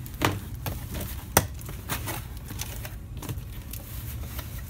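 Cardboard box flaps being pulled open and handled: rustling and scraping of cardboard with a few sharp knocks, the loudest about a second and a half in.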